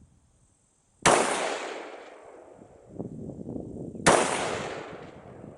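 Two rifle shots about three seconds apart, each rolling away in a long echo.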